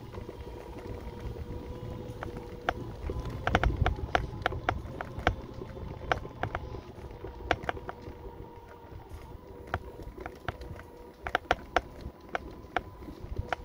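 Mobility scooter's electric motor whining steadily as it drives along, over a low rumble, with irregular sharp clicks and knocks that bunch up about a third of the way in and again near the end.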